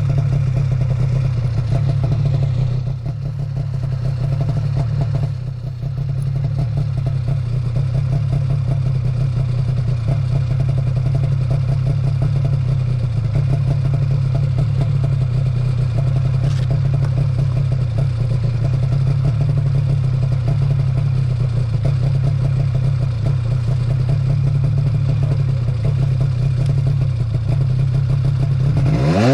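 Motor vehicle engine running at a steady speed, with two brief dips in level about three and five and a half seconds in.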